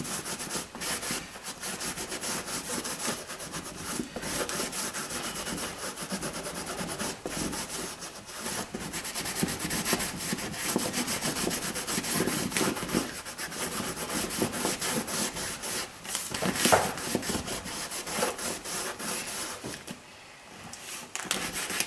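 Cloth rag rubbing leather colour into a cracked leather car seat: continuous quick scrubbing strokes on the leather, easing off briefly near the end.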